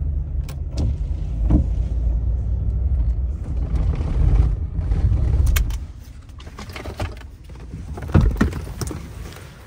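Pickup truck driving, heard from inside the cab: a steady low engine and road rumble that drops away about six seconds in. A couple of sharp clicks and knocks follow near the end.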